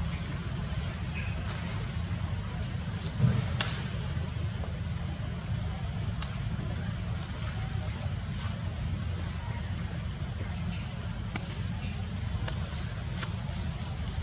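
Steady high-pitched insect drone over a low rumble, with one short thump about three seconds in.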